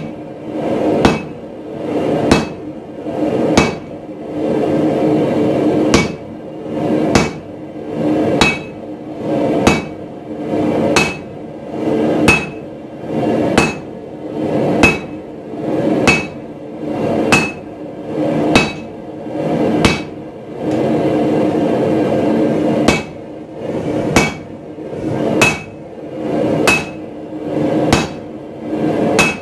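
Hand-hammer blows on a red-hot 42 mm round 4140 steel bar held in tongs on an anvil, struck steadily about once every second and a bit. Each blow is a sharp hit with a brief ring. There is one short pause about two-thirds of the way through.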